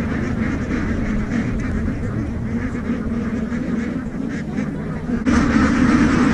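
A large flock of Indian Runner ducks quacking together in a dense, continuous chorus. It grows louder about five seconds in.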